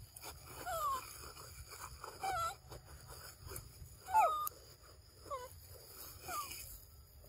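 Young macaques giving short whimpering calls that fall in pitch, about five in all, the loudest about four seconds in.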